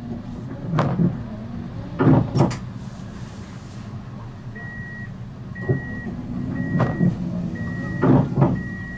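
Siemens Avenio tram with a steady low hum and several sharp knocks; from about halfway, a high beep repeats about once a second, the tram's door-closing warning signal.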